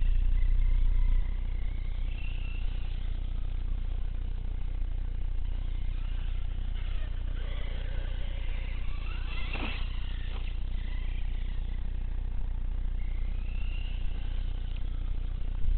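Brushless electric motor of a 1/6-scale Redcat Shredder RC truggy whining faintly, rising and falling in pitch several times as the throttle varies, over a steady low rumble.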